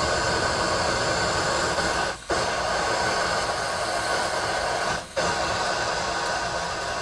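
A motor-driven machine running steadily and loudly, dropping out briefly twice, about two and five seconds in.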